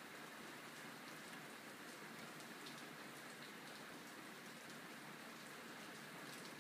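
Steady rain falling: a faint, even hiss with scattered ticks of individual drops.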